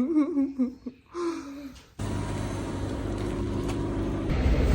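A young child's voice briefly, then an abrupt change to the steady rumble and road noise of a car driving, heard from inside the car, growing louder near the end.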